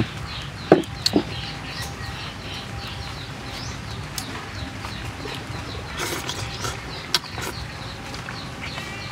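Birds chirping repeatedly in quick short calls, with a few sharp clicks about a second in and again about six to seven seconds in.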